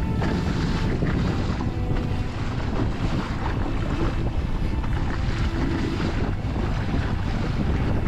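Wind buffeting the microphone over choppy water, with waves washing against a kayak, a steady, heavy rumble throughout.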